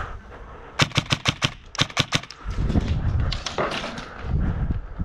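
Airsoft guns firing in two quick strings of sharp cracks, about a dozen shots in all, in the first half. Low muffled bumps follow.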